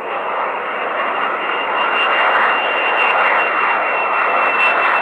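Small battery-powered DC motor spinning a cardboard toy helicopter's propeller: a steady whir with a thin high whine on top, building up over the first second.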